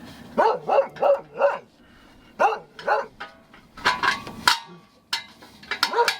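Dog barking repeatedly in short runs of quick barks, several a second, with brief pauses between the runs.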